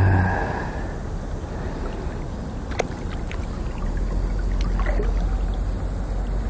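River current rushing and swirling around the legs of an angler wading in the shallows, with a couple of small clicks in the middle.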